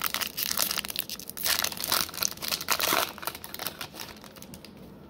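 A foil trading-card pack wrapper (2021 Topps Finest) crinkling and crackling as it is torn open and pulled off the cards, for about three seconds, then dying away.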